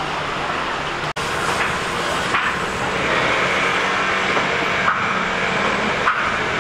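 Steady background din of a busy meat market: an even wash of indistinct noise with a faint steady hum. A brief dropout breaks it about a second in.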